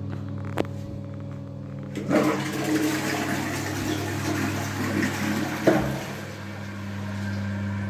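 A click, then a toilet flushing: water rushing into the bowl for about four seconds, with a knock near the end, over a low steady hum.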